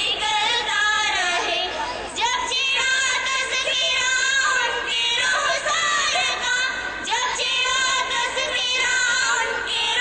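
Young girls singing a song together into a microphone, their held notes wavering in pitch, with a brief break in the line about two seconds in.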